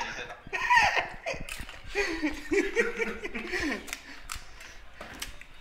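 People laughing and talking, with a few short clicks scattered through.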